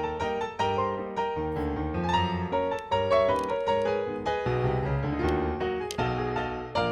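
Background piano music: a keyboard melody with chords.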